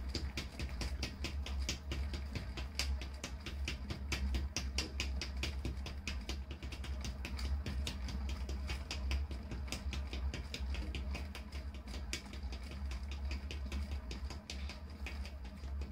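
Potter's wheel spinning while a pot is thrown on it: a steady low hum with rapid, uneven clicking.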